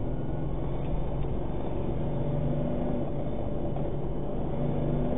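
Engine and road noise inside the cab of an armored cash-in-transit truck as it drives on, a steady drone.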